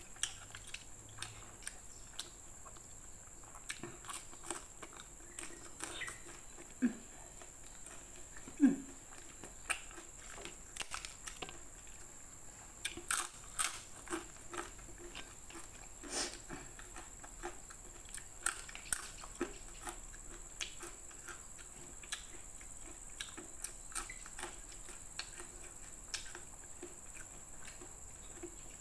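Close-miked eating: irregular crisp crunches and chewing as crispy peanut rempeyek crackers are bitten and chewed, with a few louder bites along the way.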